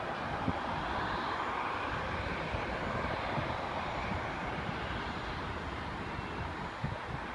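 Engine noise of an airliner taking off, a steady rushing sound that is loudest about one to two seconds in, with wind rumbling on the microphone.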